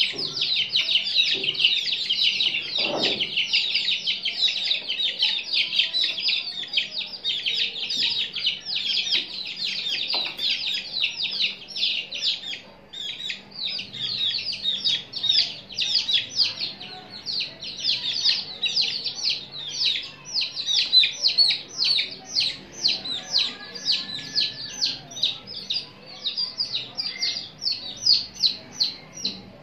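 Many chicken chicks peeping at once: a dense, near-continuous stream of short, high, falling peeps, thinning briefly near the middle.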